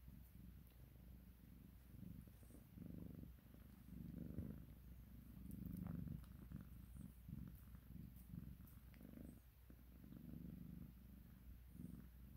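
Long-haired calico cat purring steadily while being stroked, the purr swelling and fading with each breath.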